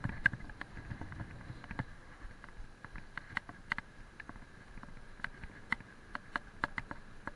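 Mountain bike rolling over a paving-stone path: a low tyre rumble with irregular sharp clicks and rattles from the bike jolting on the stones. The rumble is strongest in the first two seconds.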